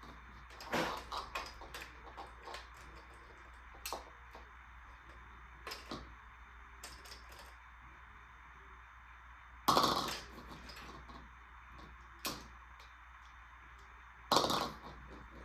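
Scattered clicks and clacks of a toy marble run, marbles and plastic pieces knocking together, with three louder knocks: about a second in, near the middle, and near the end.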